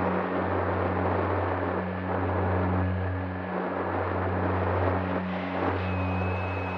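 Onboard sound of a Bixler 3 RC plane in flight: its Turnigy Aerodrive SK3 1500kv brushless outrunner motor and propeller running steadily, under a constant rush of wind on the camera's microphone. The hum dips briefly a couple of times, and a faint thin whine comes in near the end.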